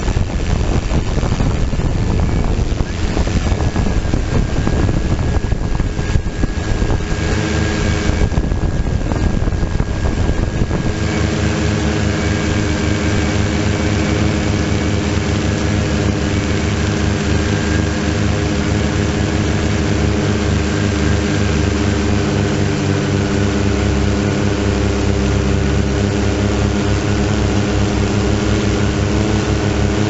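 Multirotor drone's motors and propellers humming steadily as it flies, picked up by its onboard camera. Wind buffets the microphone for roughly the first third, then the hum settles and holds even.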